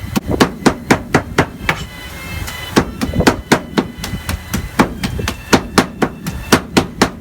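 Meat cleaver chopping grilled carne asada on a wooden cutting board: quick repeated chops, several a second, with a short pause about two seconds in.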